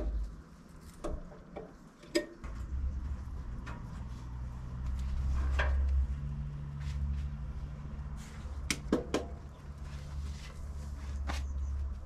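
Scattered metal clicks and clinks as a sawmill band blade is changed by hand at the blade housing, over a low rumble that sets in a couple of seconds in.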